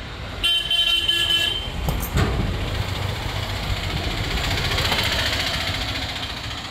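A vehicle horn sounds once for just over a second, then a knock, then the rush of a vehicle going past, swelling and fading away.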